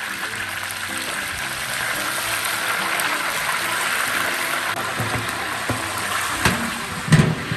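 Slabs of meat deep-frying in hot oil in a large wok, with a steady sizzle. Near the end come a couple of low knocks, over faint background music.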